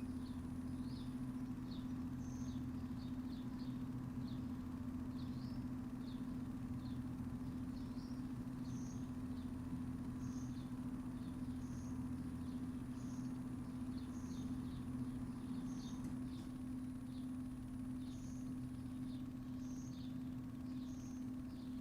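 Backyard ambience: a steady low mechanical hum runs throughout, with a small bird chirping over it roughly once a second. A faint, steady high-pitched whine sits above both.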